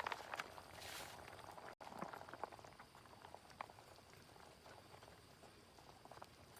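Food cooking in a pan on a camp stove: faint bubbling with scattered small pops over a low hiss, and a brief louder hiss about a second in.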